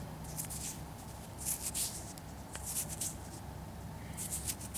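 Fingers rubbing dirt off a freshly dug coin: about four short, scratchy rubbing strokes roughly a second apart.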